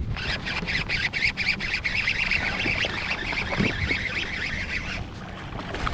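Fishing reel cranked fast: a steady rasping whir that stops about five seconds in. A hooked bass splashes at the surface about three and a half seconds in.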